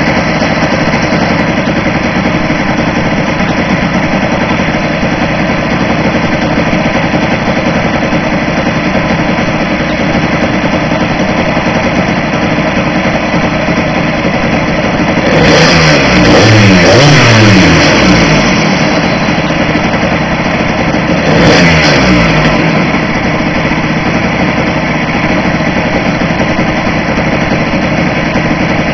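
Small Blata two-stroke petrol engine of a radio-controlled speed trimaran running continuously at speed. Its note swells and sweeps in pitch twice: for a few seconds about halfway through, and briefly about three-quarters of the way through.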